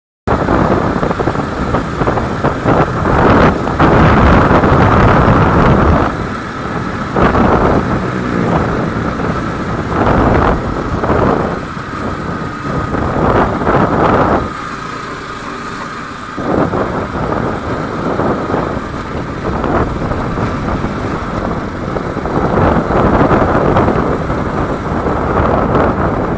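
Wind buffeting the microphone over the engine and road noise of a vehicle travelling along a paved highway, rising and falling in gusts and easing briefly about fifteen seconds in.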